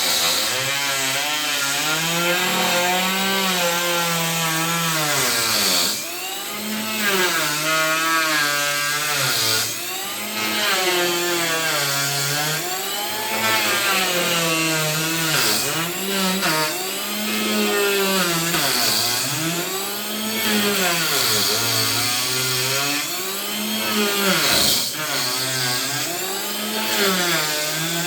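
Electric wood planer running and cutting. The motor's pitch dips and recovers over and over, about once every one to two seconds, as the cutter takes load on each pass, with the noisy rasp of the blades on the wood above it.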